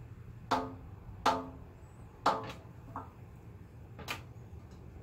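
Orion XT8 Dobsonian's altitude tension spring pinging as the tube is moved: about five sharp metallic pings, roughly a second apart, each ringing briefly and dying away, one of them fainter. The ping comes from the spring where it is mounted, which the owner cures with a little silicone grease on the spring mount.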